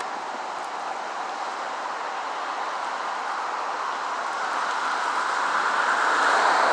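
A vehicle approaching through floodwater: a steady rush of water and tyres that grows louder toward the end.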